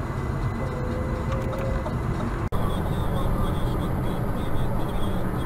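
Steady road and engine rumble heard inside a moving car's cabin, broken by a momentary dropout about two and a half seconds in where one dashcam recording cuts to another.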